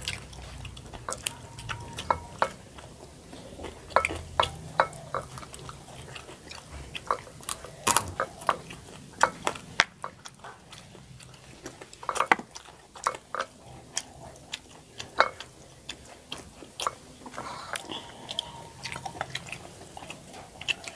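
Close-up chewing and eating of catfish by hand, with many irregular sharp clicks throughout.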